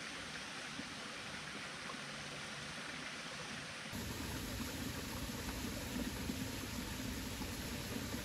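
Steady water noise with no distinct events. It changes at an edit about four seconds in, becoming fuller and deeper.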